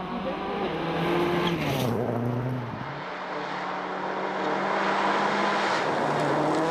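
A World Rally Car's turbocharged four-cylinder engine running hard on a rally stage. Its note drops sharply about two seconds in, then holds steady at high revs.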